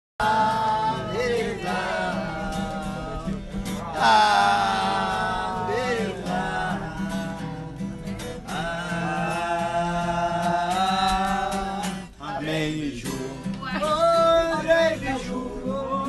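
Acoustic guitar (violão) strummed to accompany singing, the voice holding long, wavering notes.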